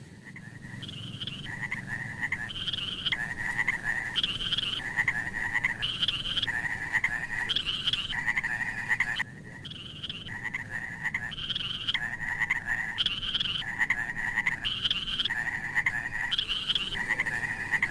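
Frogs calling: a steady series of short croaks that alternate between a higher and a lower note, a little more than one a second, with a brief break about nine seconds in.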